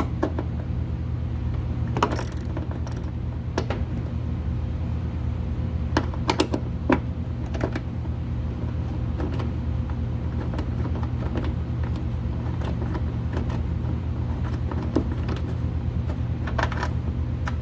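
Scattered metallic clicks and clinks of hand tools and small hardware as a ground wire is fastened, over a steady low hum. A few of the clicks come close together near the start and again around the middle.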